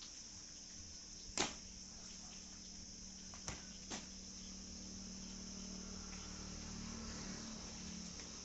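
Crickets trilling steadily, with three sharp knocks: the loudest about a second and a half in, then two closer together about two seconds later.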